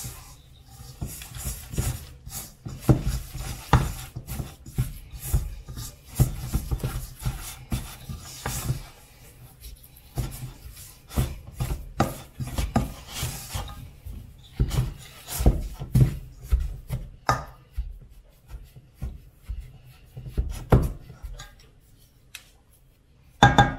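Wooden spoon stirring and scraping a stiff, crumbly flour dough in a stainless steel mixing bowl, with irregular knocks of the spoon against the bowl. It eases off in the later part.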